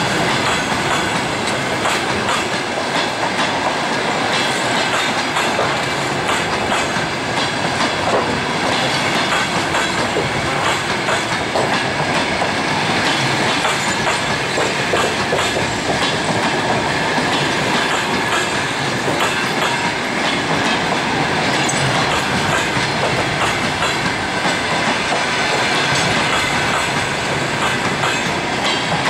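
Passenger coaches of an express train rolling steadily past at speed: a continuous rumble, and wheels clattering rapidly over the rail joints.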